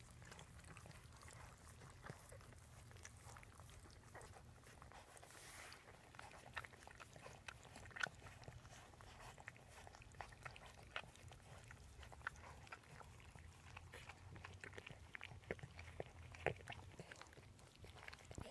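Faint, irregular wet clicks of adult dachshunds licking a newborn puppy clean, a few louder ticks among them, over a low steady hum.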